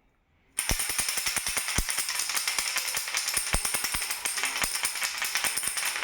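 Baby rattle shaken steadily, a dense, rapid rattling full of small clicks that starts suddenly about half a second in.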